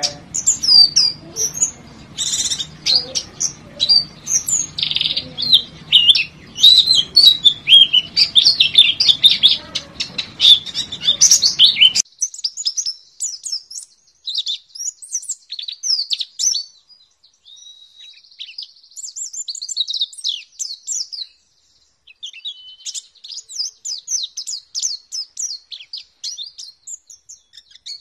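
White-eye (pleci) singing a long, rapid run of high chirps and trills, with brief pauses. A background hiss under the song stops abruptly about twelve seconds in, leaving the song alone.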